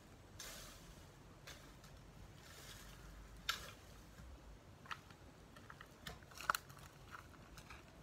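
A long-handled garden tool scraping and rustling through cut weeds and dry vegetation on the ground, in irregular strokes with a few sharp cracks, the loudest about three and a half and six and a half seconds in.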